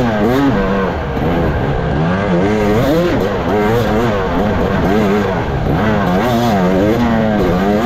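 Off-road racing dirt bike engine, heard on board, revving up and falling back over and over, the pitch rising and dropping about once a second as the throttle is worked through the terrain.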